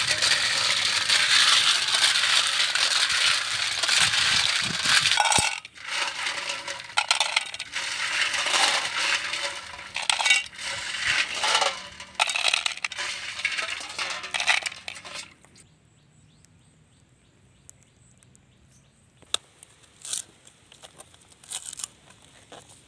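Snail shells clattering and clinking against a stainless-steel bowl and pot as handfuls of live snails are rubbed and dropped in, loud and continuous with short gaps for about fifteen seconds. Near the end, a few sharp knife chops on a wooden cutting board.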